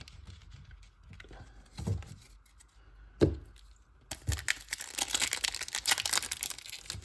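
Foil booster-pack wrapper being torn open and crinkled, the crackling starting about four seconds in, after two soft knocks.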